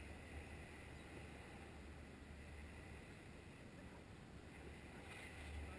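Near silence: a faint, steady low wind rumble on the camera's microphone over a soft hiss.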